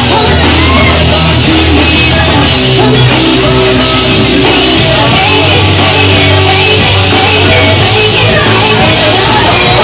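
Loud live rock music with a singer's voice over a steady beat.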